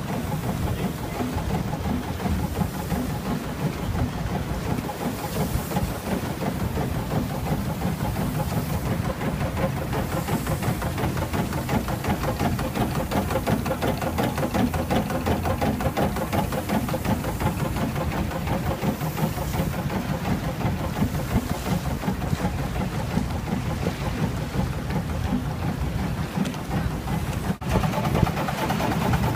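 Steamboat's engine running steadily with a rapid, even beat, with one sharp click near the end.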